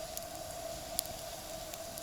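Small camp pot of water over a campfire starting to hum with a steady high tone as it nears the boil, with a few faint crackles from the fire.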